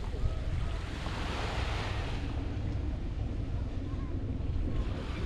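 Waves washing onto the beach, with one surge of surf about a second in and another building near the end. Wind rumbles on the microphone throughout.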